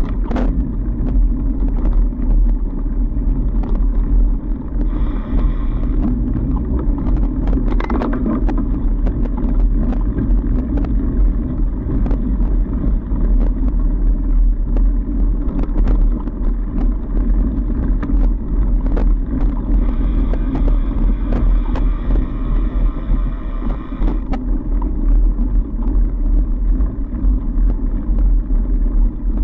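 Trek Farley fat bike ridden along a packed snow trail: a steady low rumble from the wide tyres and the bike, heard through a camera mounted on it, with scattered clicks and rattles from the bike over the bumps.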